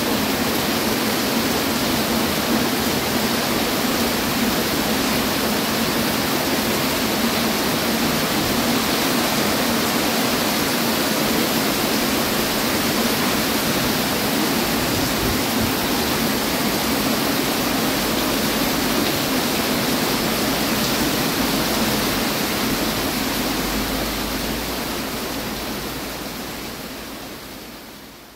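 Heavy rain falling steadily, a dense even hiss, fading out over the last six seconds or so.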